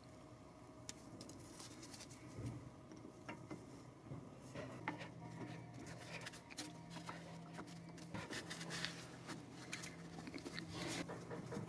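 Faint, scattered clicks and scrapes of a new brake pad being handled and slid into a Mercedes-Benz AMG front brake caliper with gloved hands. A faint steady low hum joins about halfway through.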